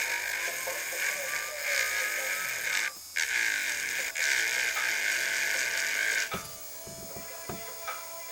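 A small electric motor whirring with a strong hiss, a faint tone slowly rising in pitch under it. It cuts off about six seconds in and is followed by several sharp mechanical clicks and clunks.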